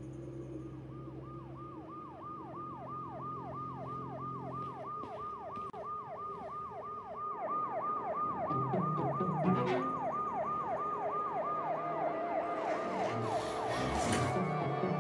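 Siren in fast yelp mode: a falling wail repeated about three times a second, growing louder, with low rumbling and a few sharp knocks coming in over the second half.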